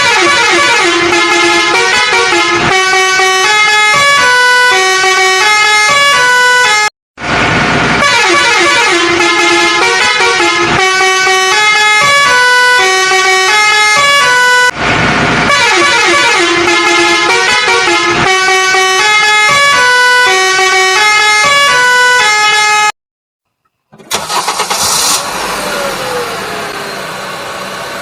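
A musical vehicle horn playing a short electronic tune, repeated three times with brief breaks between. After a moment of silence near the end, a noisier vehicle sound with a short falling tone takes over.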